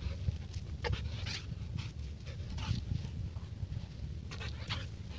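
Excited dog panting and whining in short bursts, several times over, as it jumps up.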